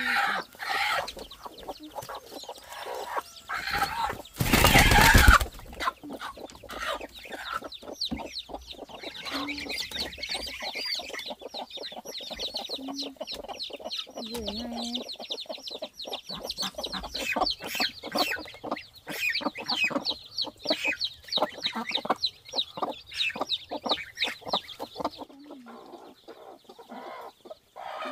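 Chickens clucking, with a loud harsh burst about four and a half seconds in. From about nine seconds, chicks peep rapidly and high-pitched almost without pause until shortly before the end.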